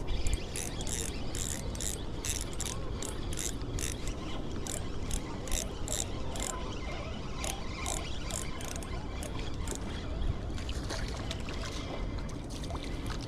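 Fishing reel clicking as it is worked, about three sharp ratchet clicks a second that stop after about eight seconds, over a steady low rumble.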